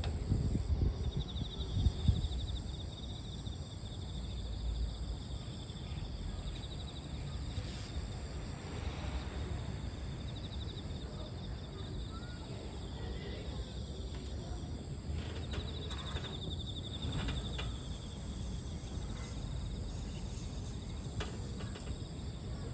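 Insects chirring in the grass, a steady high pulsing trill that swells twice, over a low rumble of outdoor noise. There are a few low thumps in the first two seconds.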